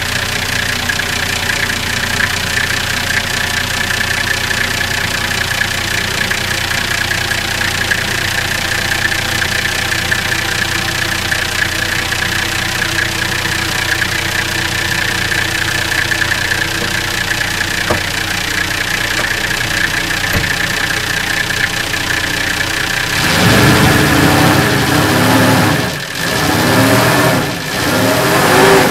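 Nissan Y60 Safari's TD42T straight-six turbodiesel idling steadily while still cold in sub-zero temperatures. About 23 seconds in it gets louder and is revved up and back down about three times.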